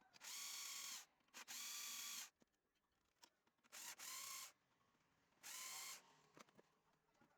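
A small electric tool motor whirring in short bursts, four times, each under a second and at a steady pitch.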